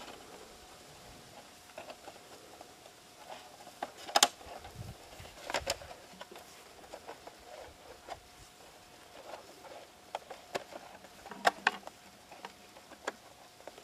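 RC helicopter canopy being handled and pressed onto the helicopter's frame: scattered clicks and knocks, the loudest about four, five and a half, and eleven and a half seconds in, over a faint steady tone.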